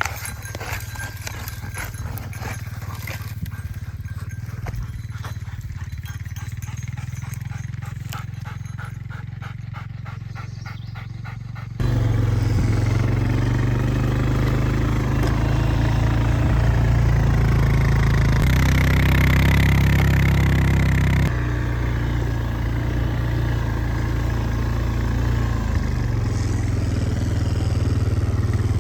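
Engine running steadily with a low hum, with scattered clicks over it at first. The hum jumps suddenly louder about twelve seconds in and stays strong to the end.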